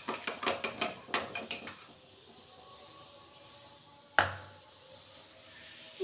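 Metal spoon clinking rapidly against the inside of a ceramic teacup while stirring sugar into milky tea, about five clinks a second, stopping after under two seconds. A single sharp knock follows about four seconds in.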